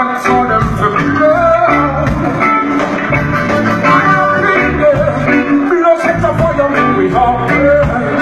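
Live concert music: a singer over a band, with bass and drums keeping a steady beat.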